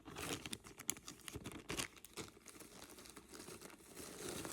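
Small plastic bags crinkling and rustling, with scattered light clicks, as costume jewelry is handled and unbagged.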